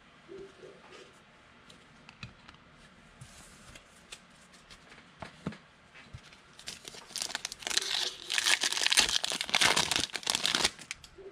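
A trading-card pack wrapper being torn open and crinkled: a few light clicks and rustles, then a dense crackling burst lasting about four seconds in the second half.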